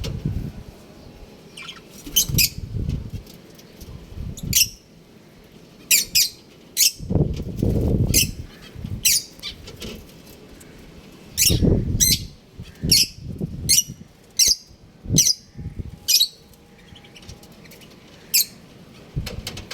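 Caged pet birds, budgies among them, giving many short, sharp chirps and squawks in irregular bursts, with a few low bouts of wing flapping.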